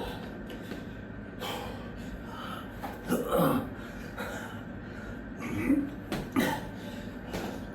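A man breathing hard and gasping from the exertion of burpees, with a falling grunt about three seconds in. A few short thuds come through as he drops to the floor and lands.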